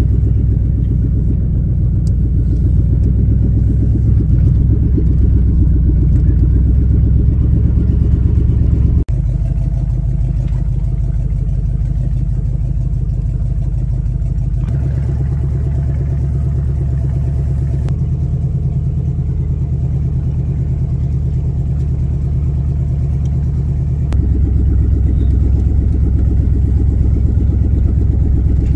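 Vehicle engine running while driving slowly along a rough grassy trail, a steady low rumble with an even pulse. It dips briefly about a third of the way in and gets louder again near the end.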